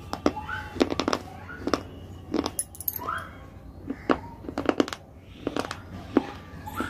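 Close-up eating sounds: a person biting and chewing crunchy food, with sharp crunches coming irregularly, sometimes several in quick succession, and small wet mouth squeaks between them.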